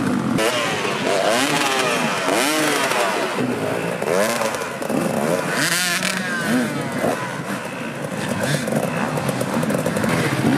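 Enduro dirt bike engines revving up hard and dropping back again and again as the bikes are worked over logs, with several bikes sounding at once.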